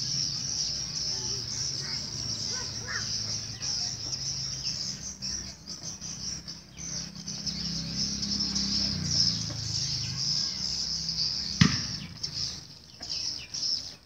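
Dense, steady high twittering of swiftlet calls, with a low hum underneath that fades out about ten seconds in. A single sharp knock, the loudest sound, comes near the end.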